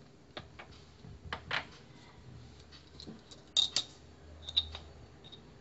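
Scattered light clicks and taps of kitchen utensils and spice containers being handled while spices are measured into a pot, with a sharper pair of clicks a little over three and a half seconds in.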